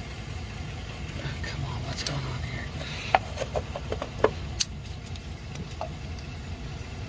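A few sharp clicks and taps from a hand working the distributor cap and spark plug wires, over a steady low hum.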